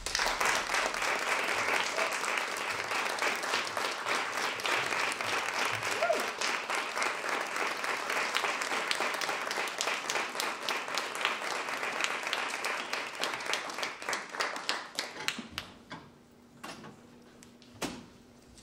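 Audience applauding: dense clapping starts abruptly and dies away about fifteen seconds in, leaving a few scattered claps near the end.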